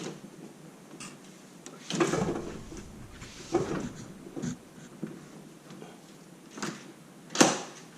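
A door being swung shut on a newly fitted Baldwin keyed doorknob: a few handling knocks and rustles, then a sharp click near the end as the latch catches. The door closes and latches properly after the lock install.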